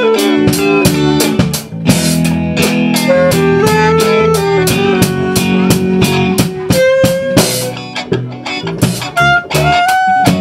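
Saxophone playing a moving melody live over electric guitar and a drum kit keeping a steady beat, in a jazzy blues groove.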